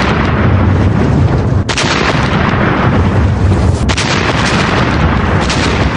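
Artillery barrage: heavy guns firing in a dense, continuous din of booms and blasts, with brief breaks about two and four seconds in.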